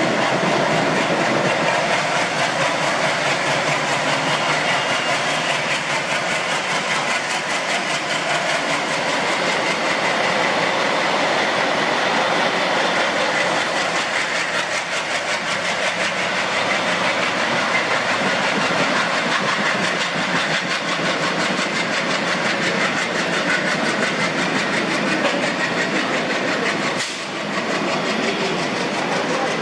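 An ALCo WDM-3A diesel locomotive's V16 engine running as the train moves along the platform, with the clatter of wheels over rail joints, under a steady hiss of heavy rain.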